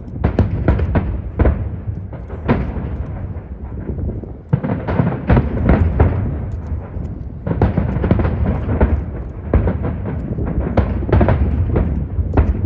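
Fireworks shells bursting in rapid volleys, many sharp bangs over a continuous deep rumble, easing off briefly twice before picking up again.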